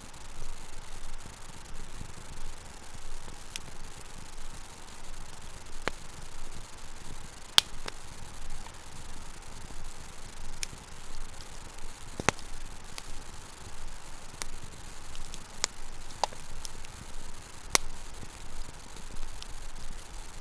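Wood campfire burning: a steady low hiss with irregular sharp pops and crackles every second or two, a few of them louder snaps.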